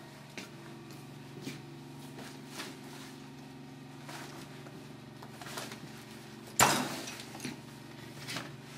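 Steady low electrical hum with scattered light knocks and handling noises, and one loud thump about two-thirds of the way through.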